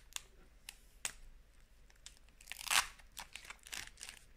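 A foil Pokémon booster pack being torn open by hand: a few small clicks and crinkles of the foil wrapper, then a longer tearing rip, loudest a little before three seconds in, followed by more crinkling.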